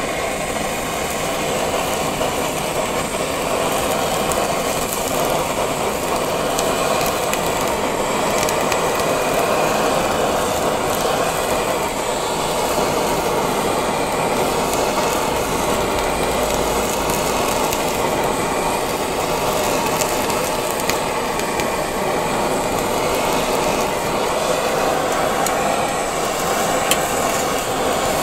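Handheld butane blowtorch on a gas canister, its flame hissing steadily as it sears slabs of pork belly.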